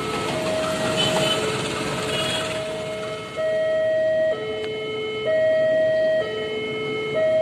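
Railway level-crossing warning alarm sounding two alternating tones, high then low, switching about once a second. A passing train's rumble fades under it in the first three seconds.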